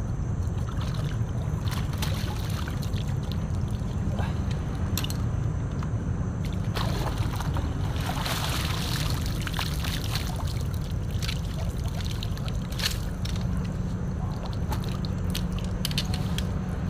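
Water sloshing, splashing and trickling as a mesh fish keep net is handled in and out of the river, with scattered small clicks and a busier stretch of splashing about halfway through. A steady low rumble runs underneath.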